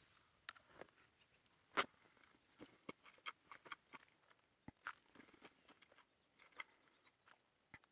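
Faint chewing and slurping of a mouthful of instant noodles, heard as scattered soft wet mouth clicks and smacks, the most distinct about two seconds in.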